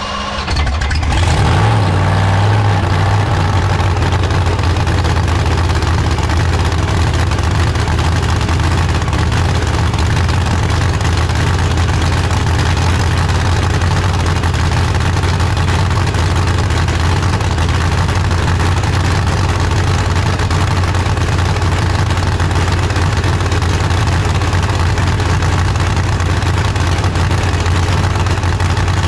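Drag-race Camaro's methanol-fuelled engine catching on its first start-up, rising briefly over the first couple of seconds, then running steadily at a loud idle.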